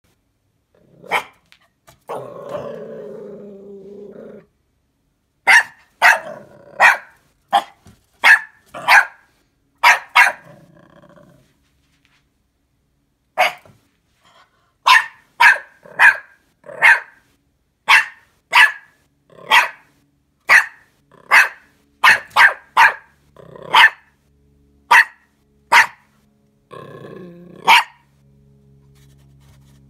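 Puppy barking repeatedly in short, sharp yaps at a fox outside the window, with a drawn-out growl about two seconds in and again near the end.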